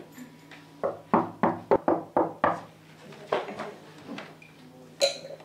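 Knocking on a wooden door: a quick run of about eight knocks, then a few looser ones. Near the end comes a single sharp, ringing clink.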